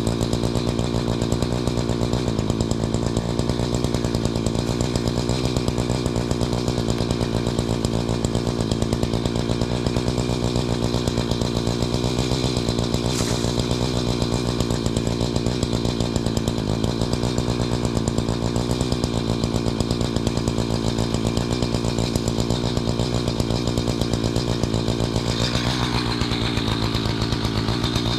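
Gasoline two-stroke chainsaw running steadily at an even, unchanging pitch, with a slight shift in tone near the end.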